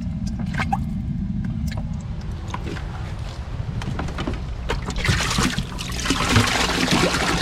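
Water splashing and sloshing over a steady low rumble, with a louder burst of splashing about five seconds in that lasts a couple of seconds.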